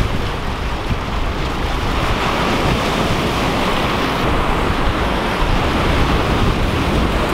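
Ocean surf washing and breaking against a rock jetty, with wind buffeting the microphone in a steady low rumble.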